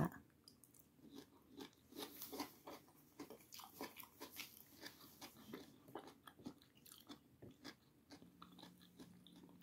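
Faint close-up chewing of a mouthful of food: an irregular run of small clicks and soft crunches as the jaw works.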